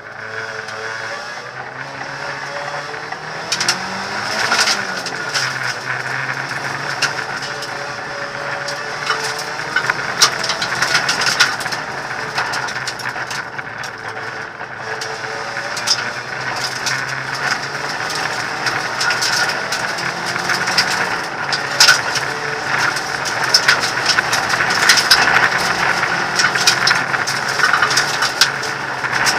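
Hyundai Accent rally car's engine heard from inside the cabin, revving up and down as the car is driven hard, with gravel and stones clattering against the underbody and loose parts of the cabin rattling.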